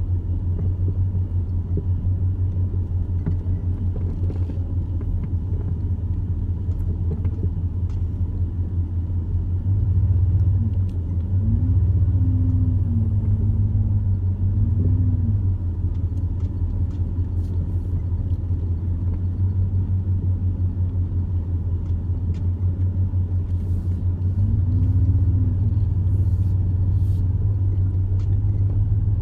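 A steady low rumble of a motor vehicle running. It swells a little twice, with a faint tone rising and falling each time.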